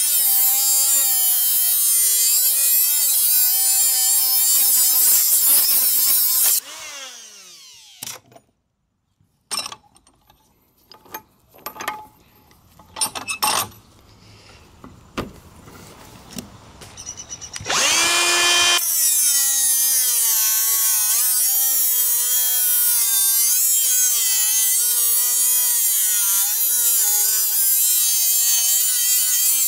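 Makita 18-volt cordless die grinder with a 3-inch metal-cutting disc grinding through a steel chain link, a loud whine that wavers in pitch under load. About six and a half seconds in it is switched off and winds down, followed by scattered clicks and knocks as the chain is handled. About eighteen seconds in it spins up again and goes back to cutting.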